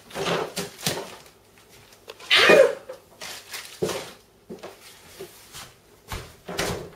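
Refrigerator handling: the door is pulled open, a plastic bag of chicken is set inside among the shelves with scattered rustles and knocks, the loudest a brief noise about two and a half seconds in, and the door shuts with a low thump near the end.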